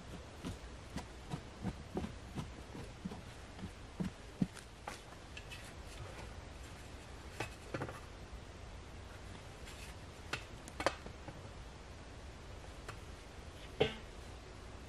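Scattered small clicks and knocks from a spirit level, hands and wood being handled at a wooden post, with the loudest knock near the end, over a steady low outdoor rumble.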